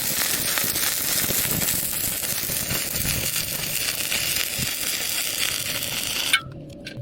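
Welding arc on a pipe joint, crackling and sizzling steadily, then cut off abruptly about six seconds in.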